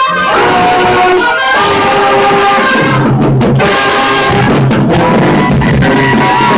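Brass band music: trumpets and trombones playing held melodic notes over drums, with a low bass line coming in about three seconds in.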